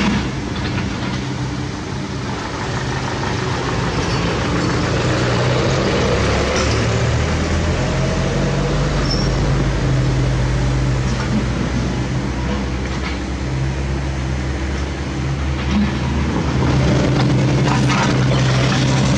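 Diesel truck and bus engines running in road traffic, a steady low hum under tyre and road noise, with an engine note that rises slowly a few seconds in.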